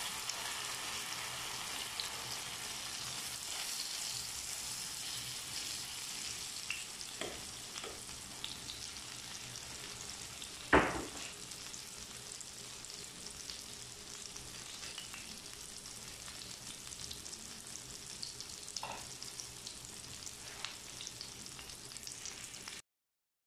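Eggplant omelette sizzling as it fries in oil in a pan, a steady hiss with small pops. A single sharp knock about eleven seconds in, and the sizzling cuts off suddenly near the end.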